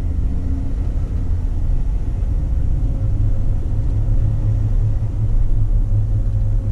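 Steady low rumble of a JK Jeep Wrangler driving, heard in the cab together with the chassis ear receiver's speaker relaying the pickup clamped at the differential pinion. Little comes through on this channel beyond general road and bearing noise, not the high-pitched whine being hunted.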